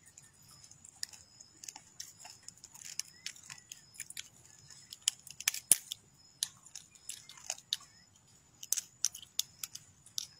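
A crab's shell cracking and clicking in someone's fingers as the top shell is pried off the body: an irregular scatter of small sharp cracks and crunches, the sharpest a little past halfway.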